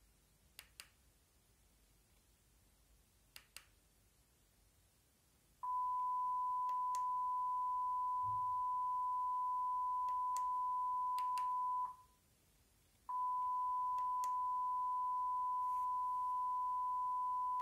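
Steady single-pitch line-up test tone from a satellite TV test channel showing colour bars. It starts about six seconds in, drops out for about a second near the middle as the receiver switches from one test channel to the next, then resumes. Before the tone there is near silence with a few faint clicks.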